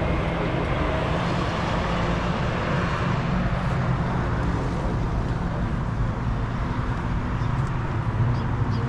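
Motor vehicle engine running steadily with a low, even rumble.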